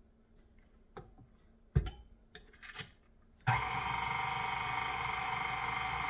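KitchenAid Classic tilt-head stand mixer: a sharp knock and a few clicks as the head is lowered and set, then about three and a half seconds in the motor starts and runs steadily, turning the dough hook through flour and wet ingredients.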